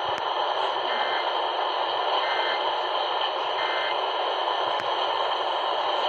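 Steady hiss of static on a weak, distant AM broadcast signal, with three short faint data bursts about a second apart, starting about a second in: the Emergency Alert System's end-of-message code sent three times, closing the monthly test.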